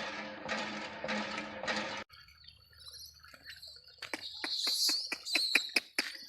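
Birds chirping in high, gliding calls in the second half, over a quick run of sharp clicks. The first two seconds hold a dense noisy sound that cuts off abruptly, followed by a quiet stretch.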